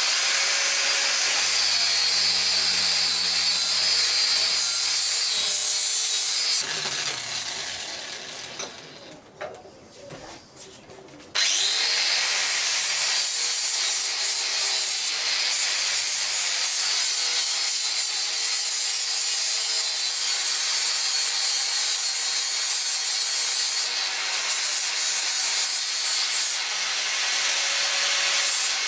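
Bosch angle grinder grinding a forged steel axe head clamped in a vice. The grinding stops about six seconds in and the disc winds down with a falling tone; about eleven seconds in it starts again suddenly and runs steadily on.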